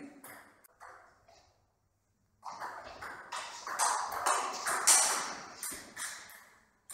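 Table tennis rally: a plastic ball clicking in quick succession off the rubber-faced paddles and the table top, with echo in a large hall, starting about two and a half seconds in and stopping shortly before the end. Before it, a few sharper ball bounces die away, followed by a brief gap of total silence.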